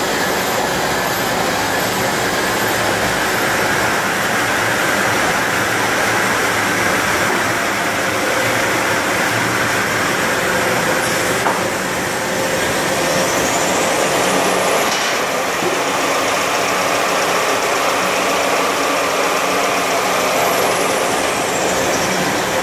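Automatic band saw cutting machine for toilet paper logs running: a loud, steady mechanical drone, with faint brief clicks about eleven and fifteen seconds in.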